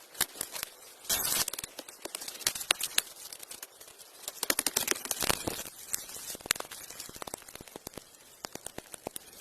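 Irregular crackling and rustling with many small sharp clicks, and a brief louder rustle about a second in.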